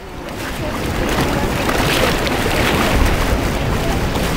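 Steady rushing noise of choppy sea water with wind buffeting the microphone, building up over the first second.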